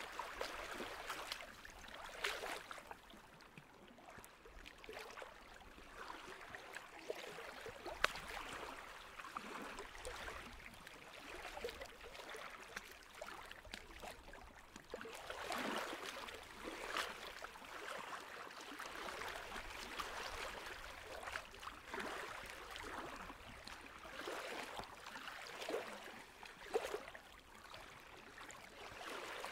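Water lapping and gurgling irregularly, with a few short sharp ticks, the sharpest about eight seconds in.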